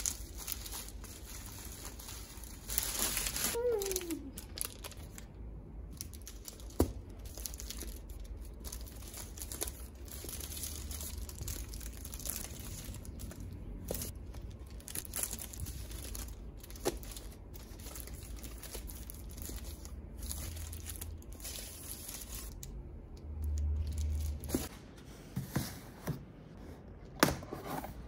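Bubble wrap and plastic packaging crinkling and tearing as manga volumes are unwrapped and handled, with a few sharp taps and a short falling squeak about four seconds in.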